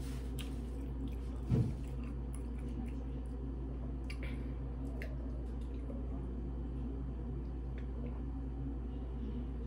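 Close mouth sounds of eating and drinking: chewing, then sips and swallows from a drink can, with scattered small clicks. A single dull thump comes about a second and a half in, over a steady low hum.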